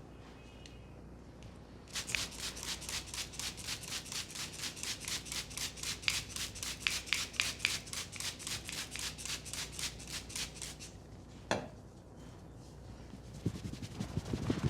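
Hands striking a person's head in a rhythmic Indian head massage, about five crisp pats a second for around nine seconds. Then a single sharp crack, and near the end a run of faster, duller taps.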